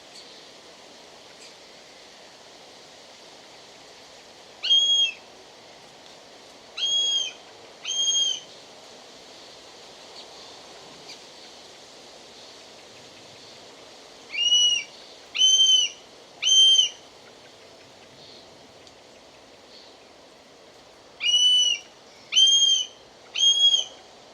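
Common buzzard calling: nine short, high, clear calls in three sets of three, each call under half a second and arching slightly in pitch, with a pause of several seconds between sets. A steady faint hiss of background noise lies underneath.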